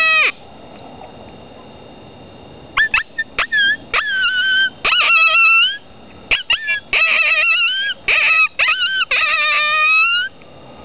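Cow horn mini howler predator call blown to imitate a coyote: a long held howl drops off about a quarter second in, then after a pause comes a run of short yips and barks and wavering, rising-and-falling howls.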